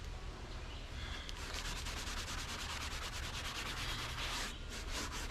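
Rapid, rhythmic brushing strokes over a freshly sawn spalted maple board, sweeping sawdust off the surface. The strokes start about a second in and pause briefly near the end before going on.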